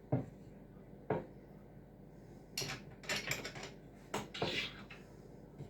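Parts of a cross-stitch embroidery stand being fitted and tightened together: scattered knocks and clicks, single ones near the start and a cluster of quicker ones in the middle.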